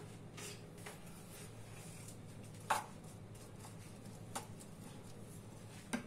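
A wooden spoon stirring chopped onion and olive oil in a clay tagine, with three short knocks and scrapes against the dish, the loudest about three seconds in, over a low steady hum.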